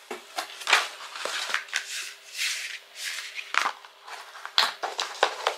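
A cardboard shipping box being opened by hand: flaps folded back and the packaging inside handled, giving a run of rustles, scrapes and sharp taps of cardboard.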